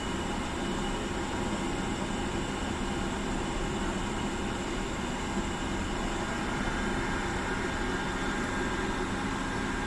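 Steady hum of air-moving equipment, like a fan, with a few faint constant tones and no distinct events.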